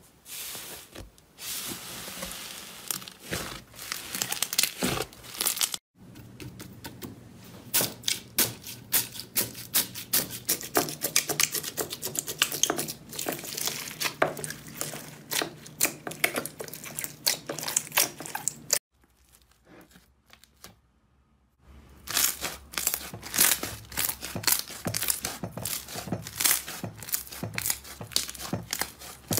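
Hands squishing, pressing and kneading slime, giving dense, sticky crackling and popping sounds. Several slimes are worked in turn, with a brief near-silent break about two-thirds through.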